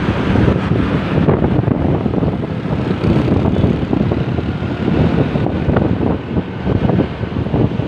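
A large bus passing close by, its engine and road noise loud and steady, with wind buffeting the microphone.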